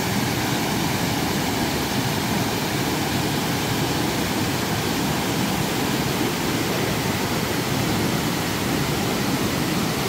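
Steady rush of a rocky mountain stream, where two small waterfalls pour into a pool and join as rapids.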